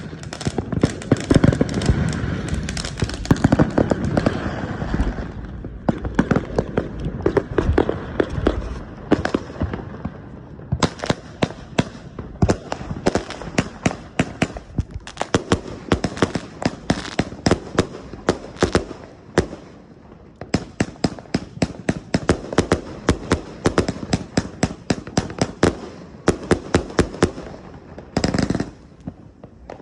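245-shot firework cake firing, a rapid string of launch reports and bursts. It is dense for the first few seconds, then settles into separate cracks several a second, with a longer burst of crackle near the end.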